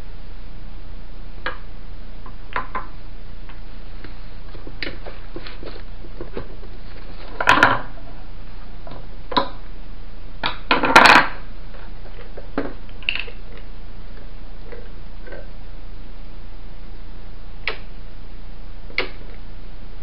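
Scattered clicks and metal clinks of tools and small metal parts as an old electric fan's motor housing is taken apart while a stuck screw is sought. Louder clattering knocks come about seven and a half and eleven seconds in, over a steady low hum.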